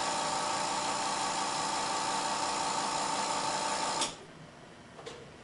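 110-volt electric purge pump running steadily, then cutting off suddenly with a click about four seconds in, at the end of its purge cycle.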